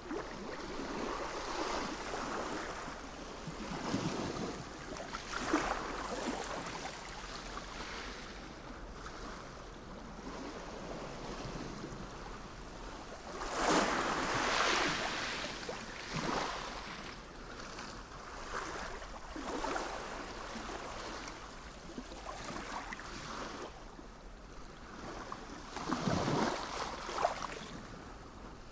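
Sea waves breaking and washing in, surging and fading every few seconds. The largest surges come about halfway through and near the end.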